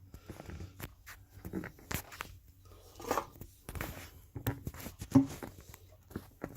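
Handling noise: irregular light clicks, knocks and rustles of things being moved and set down by hand, with a sharper knock about five seconds in.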